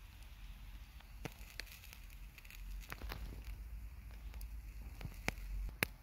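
Campfire coals crackling under skewers of grilling meat: a few sharp, irregular pops over a faint low rumble.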